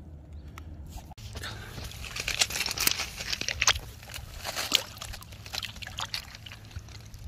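Water splashing and sloshing in rocky shallows in a run of quick, irregular splashes as a released largemouth bass thrashes on the wet stones and swims off.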